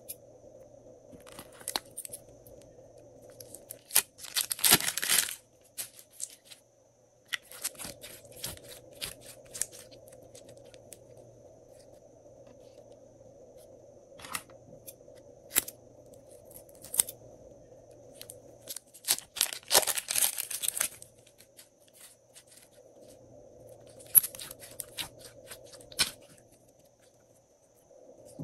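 Plastic piping bags filled with lavender and pink glossy slime being handled and squeezed: crinkling plastic and squishing slime, with scattered sharp clicks and two longer crackly bursts, about four and twenty seconds in, over a faint steady hum.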